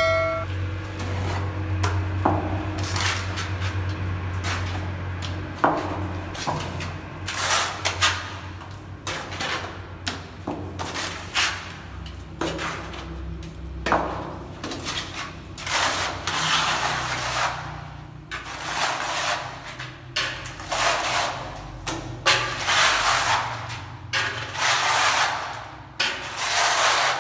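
Steel trowel scraping tile adhesive from a pan and spreading and combing it onto a cement-plastered wall: a run of rasping scrape strokes, about one a second, growing louder and more regular in the second half, with a few sharp knocks of the trowel in the first seconds.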